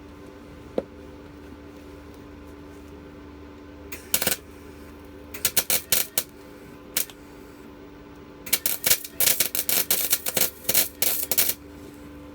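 Welding arc crackling in short bursts, several brief runs and then a longer stretch of rapid crackle, as a broken scooter part is welded; a steady hum runs underneath.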